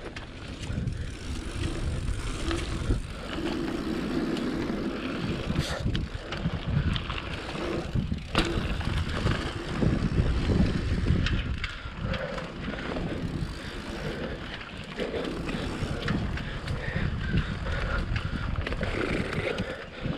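Dirt jump bike rolling fast over a packed-dirt pump track, its tyres on the dirt mixed with wind rumbling over the action camera's microphone, and a few sharp knocks as the bike jolts over the bumps and jumps.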